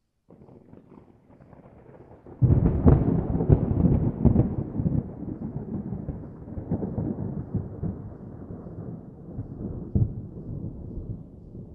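Thunder sound effect: a faint low rumble, then a sudden loud crack about two and a half seconds in, followed by a long rolling rumble that slowly fades, with a smaller crack near the end.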